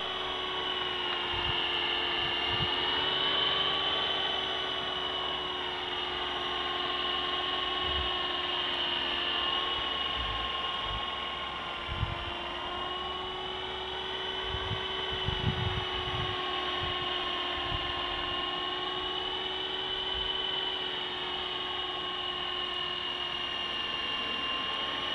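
FX052 4-channel electric RC helicopter in flight: a steady high whine from its electric motor and rotor, the pitch wavering slightly up and down. A few low thumps sound under it, the strongest about halfway through.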